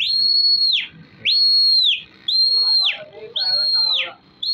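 Four loud, shrill whistles in a row, about one a second, each held on one high note and then dropping away at the end: a pigeon flyer whistling to his flock in the air.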